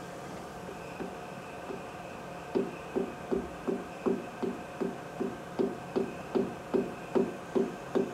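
Light, evenly spaced hammer taps on an aluminium block held against a workpiece in a lathe chuck, about two and a half a second, starting a couple of seconds in. The part is being tapped over in the jaws to take out its runout while it is indicated true.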